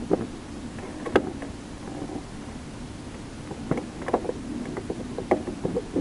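Wind rumbling on the microphone, with a few sharp knocks and clicks of the camera being handled and moved.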